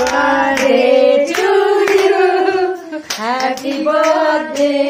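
Voices singing a birthday song in held, stepping notes, with hands clapping along.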